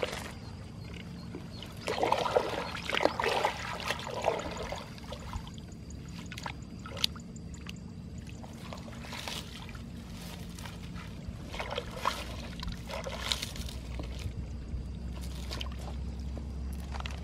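Shallow muddy water splashing and trickling in several irregular bursts as hands work in it.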